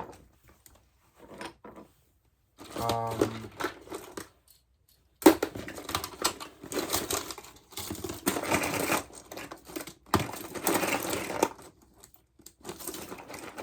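Plastic fidget toys being rummaged through and handled in a drawer: uneven rustling and clattering that is densest in the second half, with a brief low hum about three seconds in.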